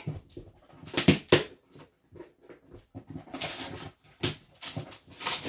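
Handling noise from a cardboard shipping box being opened: irregular rustling, scraping and knocks, with louder crackles about a second in and a longer scrape about three and a half seconds in.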